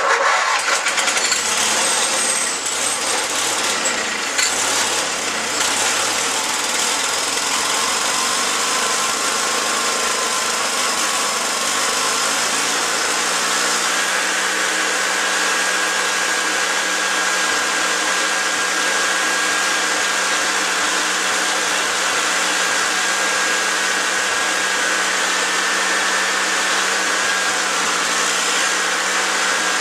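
An 18 hp twin-cylinder Briggs and Stratton engine firing up and running, a sign that the no-start fault is cured after the carburetor was cleaned and reassembled. It is uneven for the first few seconds, then its speed picks up and holds steady from about halfway.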